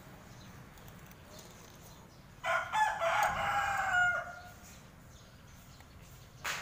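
A rooster crowing once, a call of nearly two seconds starting about two and a half seconds in. A single sharp click near the end.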